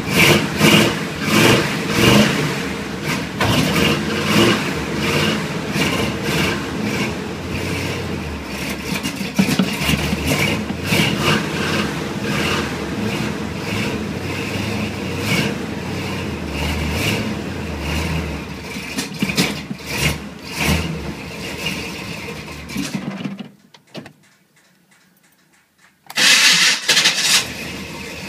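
Cold-started 350 V8 of a 1986 Chevy K5 Blazer running roughly and sputtering, with uneven surges. It is choking on water-contaminated gas and a partly plugged Quadrajet carburetor. About 23 s in it dies, and after a couple of seconds of quiet it sounds again.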